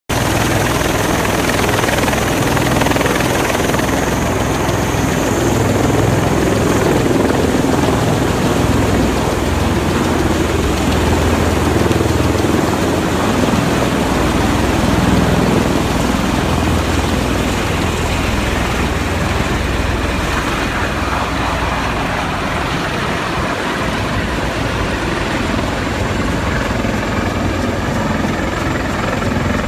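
Bell-Boeing MV-22 Osprey tiltrotor taking off, its twin proprotors and turboshaft engines running loud and steady with a low throb. The sound eases slightly near the end as it climbs away.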